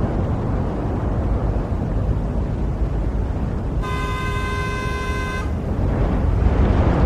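City traffic ambience: a steady rumble of road traffic, with a single car horn blast of about a second and a half, a little past the middle.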